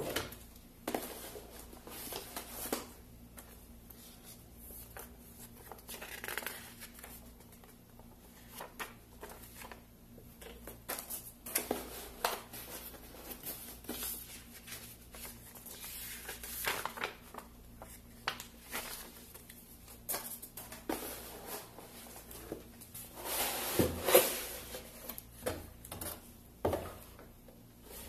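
Cardboard shipping box and its packaging being handled by hand: scattered rustles, scrapes and light knocks, with a louder stretch of rustling toward the end.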